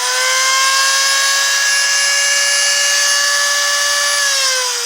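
Electric grinder with a dressed grinding stone running at full speed, a steady whine that falls in pitch about four seconds in as the wheel starts to coast down. It runs smoothly, a sign that the wheel is balanced.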